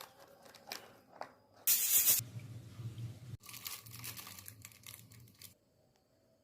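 Kitchen handling noises: a few clicks and a short, loud tearing or crinkling sound about two seconds in, then a low hum with light rustling that cuts off suddenly near the end.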